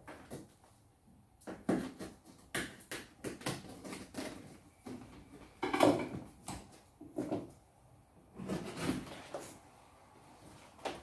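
A plastic-wrapped, taped cardboard box being cut open with a small knife: irregular scraping, slitting and crinkling bursts as the blade runs through the tape and wrap and hands work the box top, the loudest a little past the middle.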